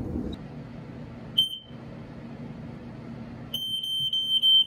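Probe 601 smoke alarm being tested: one short high-pitched chirp, then about two seconds later a loud, continuous high-pitched alarm tone with a slight regular pulse that keeps going.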